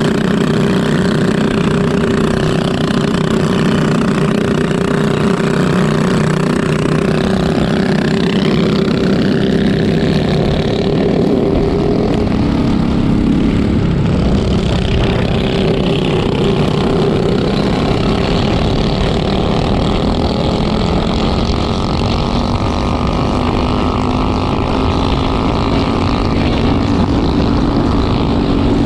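Four-stroke kart engines at racing speed, heard from on board the narrator's Briggs & Stratton LO206 kart: a steady, loud engine note with other karts' engines around it and wind rumble on the microphone. About a third of the way in, one engine note rises in pitch.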